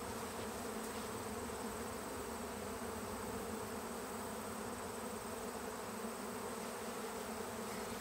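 A swarm of honeybees buzzing in the air as they re-gather on a branch, many bees together making a steady, unbroken hum.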